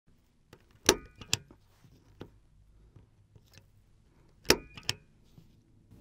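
Impact punch-down tool firing twice as it seats wires into the 110 punch-down block of a Cat6 inline junction box: each stroke is a sharp snap with a brief metallic ring, followed by a lighter click, the two strokes about three and a half seconds apart.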